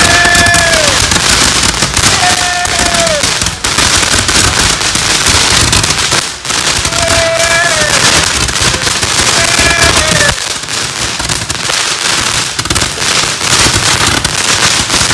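Handheld fireworks held overhead, spewing sparks with a loud, continuous crackling hiss full of rapid pops. Several short shouted calls, each falling in pitch at the end, rise over it.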